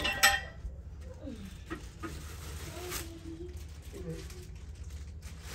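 Bed frame pieces clattering as they are set down, with a sharp knock in the first half-second, then quieter handling noise and a light knock near the end.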